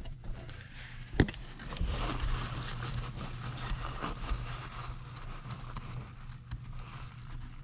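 Scraping and rubbing noise from hands working on chainsaw engine parts, with a sharp click about a second in, over a steady low hum.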